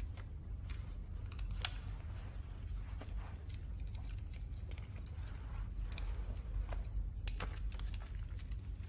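A steady low rumble of room tone with scattered small clicks and rustles from people moving, including a man taking off his glasses.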